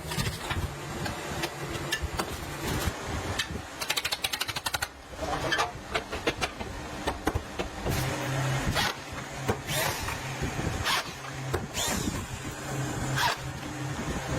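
Factory machinery at work: irregular clanks and clicks, with a quick rattle of rapid clicks about four seconds in and a steady low hum setting in past the middle.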